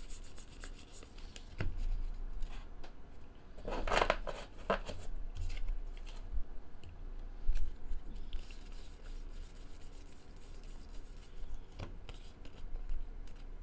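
Trading cards being handled: glossy baseball cards slid and flicked one behind another through a stack, with small clicks and scrapes and a louder rustle about four seconds in.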